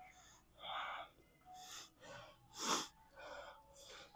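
A man breathing hard and gasping, out of breath after a strenuous drop set: about six short noisy breaths, the loudest a little past the middle.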